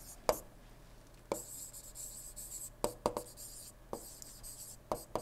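Stylus writing on a tablet screen: light scratching strokes with a scattering of sharp taps and ticks as the pen lifts and lands.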